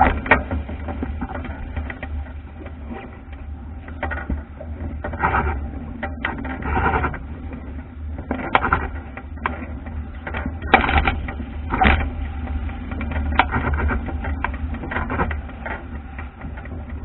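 A wooden Albacore sailing dinghy driving through choppy water: a steady low rush of water and wind along the hull, broken every second or two by irregular splashes as waves and spray hit the bow.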